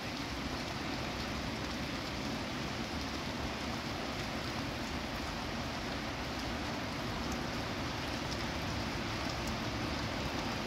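Steady rain falling: an even, unbroken hiss, with a few faint, sharper drip ticks here and there.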